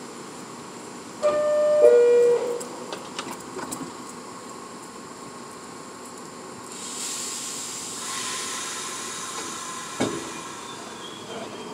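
New York City subway train at a station: a loud two-note door chime, the second note lower, a few clicks as the doors close, then a long hiss of air from the train's pneumatic system and a single knock near the end.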